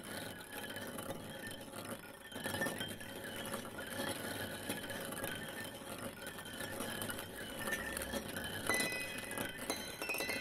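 Continuous dense clinking and tinkling, with a steady high tone joining near the end.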